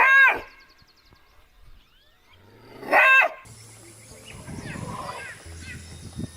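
Maned fox giving its roar-bark twice, about three seconds apart: each is a short, loud, hoarse call.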